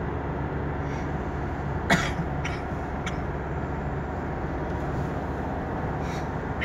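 Steady road and engine noise inside a car's cabin while it drives along a highway bridge. About two seconds in, someone in the car gives a short cough, followed by a few fainter brief sounds.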